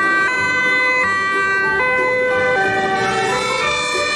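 Fire engine's two-tone siren sounding, alternating between a higher and a lower note about every three-quarters of a second.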